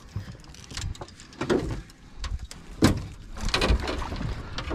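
Irregular knocks and bumps on a fishing boat, with a denser rattle a little after halfway, while a fish is being landed.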